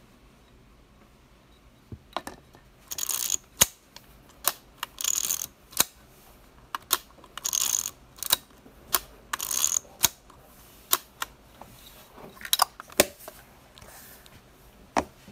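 Konica SIII rangefinder film camera being worked by hand: four short ratcheting winds of the film advance lever, each followed by a sharp shutter click. More single clicks follow near the end.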